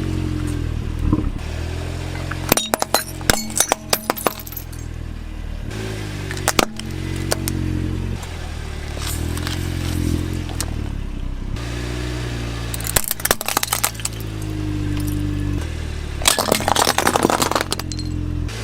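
A small electric motor of a toy excavator whirring, its pitch wavering as it works. Several bursts of hard plastic clattering and knocking come as toy cars are pushed and dropped.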